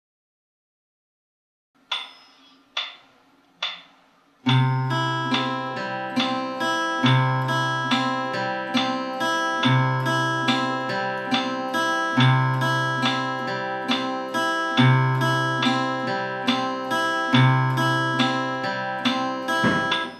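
Steel-string acoustic guitar fingerpicked in a 3/4–6/8 arpeggio pattern: a bass note on each downbeat, then higher strings picked one after another in an even, flowing rhythm. It begins about four seconds in after three short knocks about a second apart, and stops abruptly at the end.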